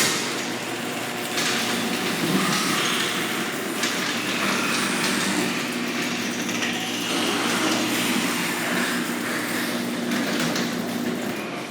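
Genie ChainGlide chain-drive garage door opener running a door cycle: a steady motor hum with the chain and rail rattling, cutting off abruptly at the end of travel.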